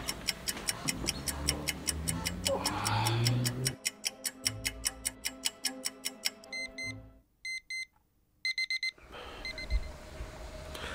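Clock ticking rapidly over background music, followed a few seconds later by an alarm clock beeping in short bursts that stops near the nine-second mark.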